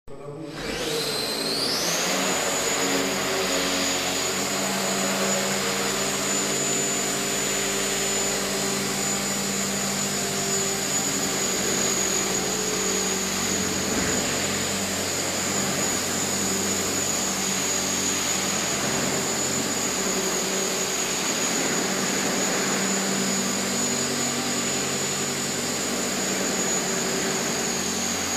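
450-size radio-controlled helicopter spooling up and hovering: a high motor whine rises over the first two seconds, then holds steady with its rotor noise.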